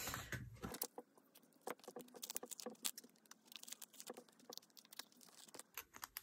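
Sleeved photocards being handled and slipped into plastic binder pocket pages: a faint run of quick, light plastic clicks and taps.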